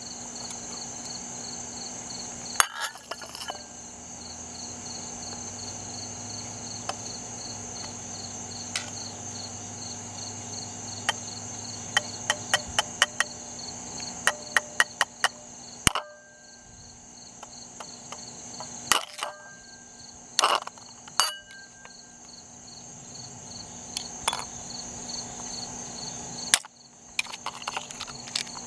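A knife tapping and knocking against a wrinkled egg and its ceramic bowl: scattered sharp clicks, some in quick runs, over a steady high-pitched chirring of insects.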